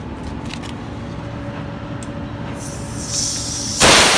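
Air brake tank drain valve on a tractor-trailer opened by hand, letting compressed air blow out with a hiss that starts about two and a half seconds in and turns into a loud blast near the end. Under it the truck's engine idles steadily.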